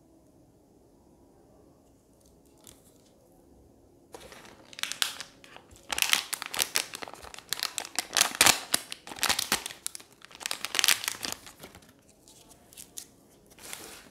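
Crinkling and rustling of a plastic anti-static (ESD shielding) bag as it is handled and opened. Close, crackly crinkles start about four seconds in and run in bursts for several seconds, then a few more come near the end.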